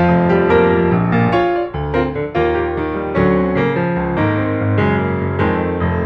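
Background piano music: a soft melody of struck notes over sustained lower chords.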